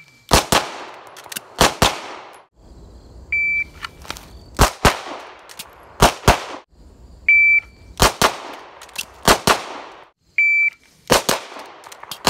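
9mm Beretta 92 (Langdon Tactical Elite LTT) pistol shots fired in quick pairs, two pairs to each string. Each string is started by a short electronic shot-timer beep, heard three times.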